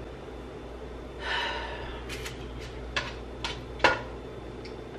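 A breathy sigh, then a run of sharp clicks and knocks as a spatula strikes a cooking pot while food is stirred, the loudest knock near four seconds in. No sizzle: the burner under the pot is off.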